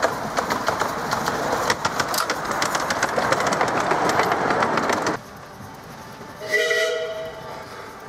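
Miniature steam railway carriages running past close by, their wheels clicking rapidly over the rail joints with a steady rattle that cuts off abruptly about five seconds in. About a second and a half later a steam locomotive whistle sounds once, briefly.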